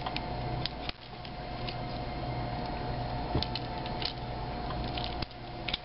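Scattered light clicks and rattles of a plastic Transformers Swerve action figure being handled, its parts folded into place, over a steady low hum.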